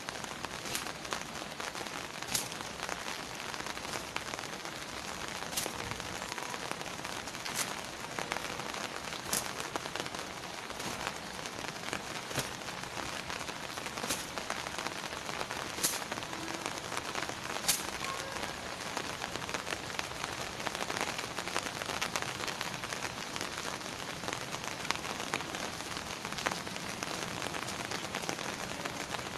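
Steady rain hiss, with a sharp snap every couple of seconds as a cotton towel is swung and slapped against long wet hair to dry it.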